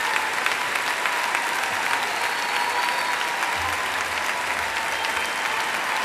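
Large concert audience applauding steadily at the end of a song.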